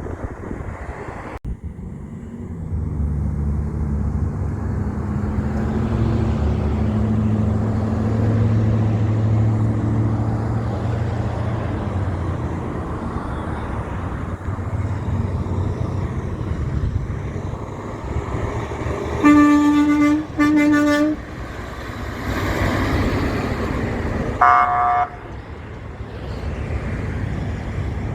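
A big truck's engine runs by, growing louder over the first several seconds. Later come two horn blasts of about a second each, close together, then a few seconds on a short, higher-pitched honk.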